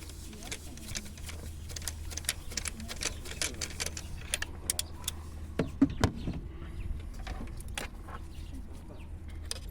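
Irregular light metallic clicks and clinks, with a heavier clunk about six seconds in, over a steady low hum: hand tools and metal parts being handled during engine work.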